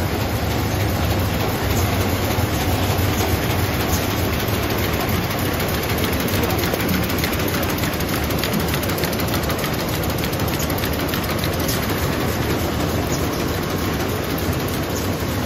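A high-speed A220 twisted-handle paper bag making machine running steadily: a continuous mechanical din over a low hum, with fine rapid ticking.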